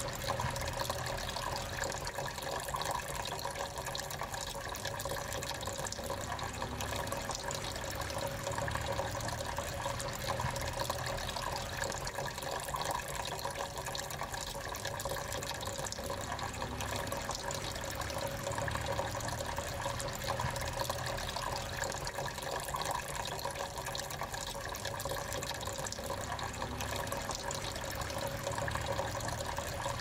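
Small tabletop cascade fountain running: thin streams of water pour from one pot-shaped basin into the water pooled in the next, giving a steady trickling and splashing.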